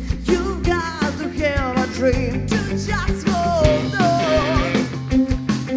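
Live rock band playing: a woman sings lead with a wavering melody over electric guitar, bass guitar and a drum kit.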